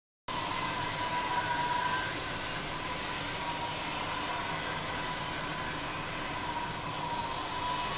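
Steady background noise with a faint wavering tone running through it, starting abruptly after a split second of silence.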